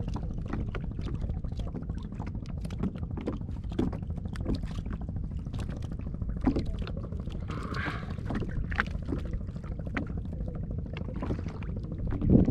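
Water lapping and slapping against a plastic sit-on-top kayak hull, with wind rumbling on the microphone and many small clicks and knocks from gear and fish being handled on the deck. There is a brief splash-like hiss about two-thirds of the way through and a louder burst right at the end.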